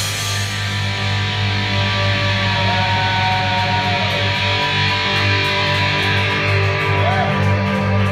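Live rock band holding a long final chord: distorted electric guitar and bass ringing on sustained notes while the cymbal wash slowly fades.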